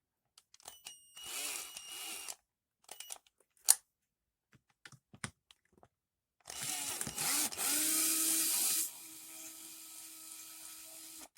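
Small cordless power drill backing screws out of an RC truck: a short whir about a second in, a few clicks, then a longer, louder run from about six and a half seconds that drops to a quieter steady hum near nine seconds. The drill's battery is running low.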